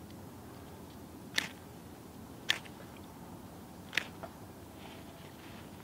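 Ferrocerium fire-starter rod on a survival bracelet struck with its scraper three times, about a second and a half apart, each a short sharp rasp.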